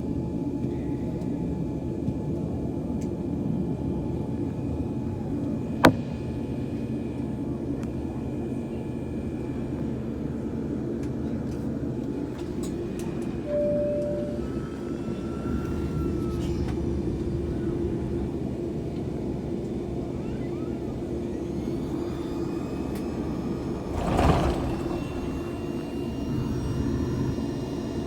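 Cabin noise of a Boeing 787-9 airliner taxiing after landing: a steady rumble of the engines and cabin air systems. A sharp click comes about six seconds in, a short beep midway, and a brief louder rush of noise near the end.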